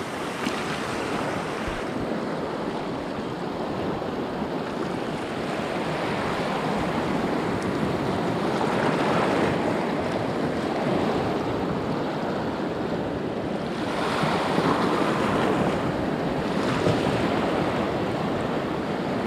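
Sea surf washing over and around a coral reef edge, a steady rush that swells a little twice, with wind on the microphone.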